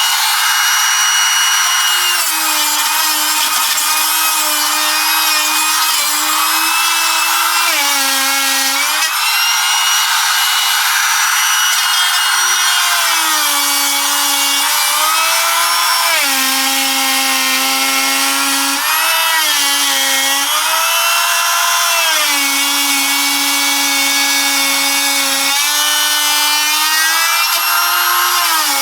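Electric plunge router running at full speed, its bit cutting a recess into laminate-covered MDF. The whine dips in pitch again and again as the bit loads up in the cut, then recovers.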